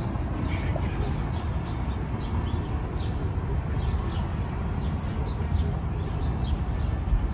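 Steady high-pitched insect drone with faint short chirps above it, over a low rumble.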